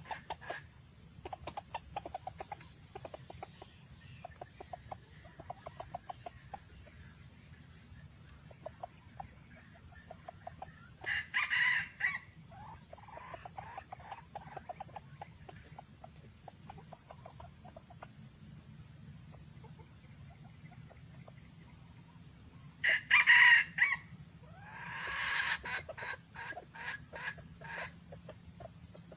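Junglefowl roosters crowing: two short, clipped crows about twelve seconds apart, with soft clucking between them. A steady high insect drone runs underneath.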